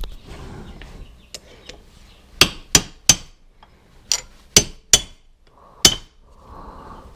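Hammer tapping on a wood chipper's metal drive pulley to drive its center hub out: seven sharp, ringing metal blows, three, then three more, then a single last one.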